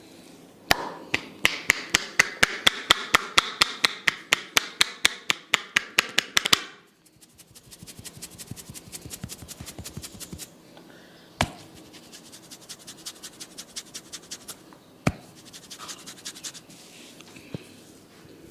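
Percussive head massage by a barber: rapid sharp taps, about five a second for six seconds, then a quieter, faster run of lighter taps. A few single louder strikes and shorter soft runs of taps follow.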